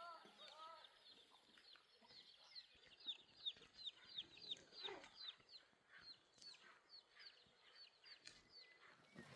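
Chickens calling faintly: a steady run of quick, high, falling peeps, a few each second.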